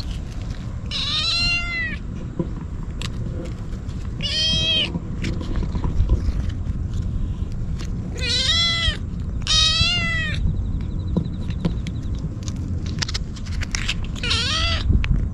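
A black-and-white stray kitten meowing loudly five times, at intervals of a few seconds, begging for the cat treat held out to it. A steady low rumble runs underneath.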